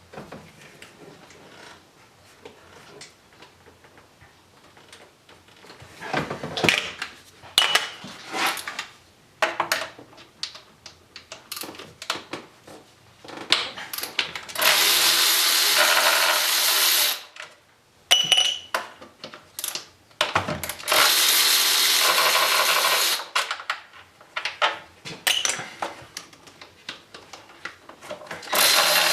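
Power driver spinning 10 mm bolts out of an engine's inlet manifold in runs of about two and a half seconds, with clinks and clatter of the socket and bolts in between; a third run starts at the very end.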